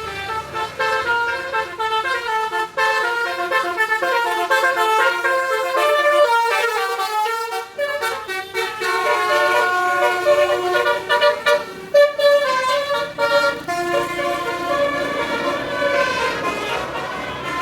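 Bus telolet horn, a basuri-type musical horn, playing a fast tune of rapidly changing notes, with brief breaks about eight and twelve seconds in.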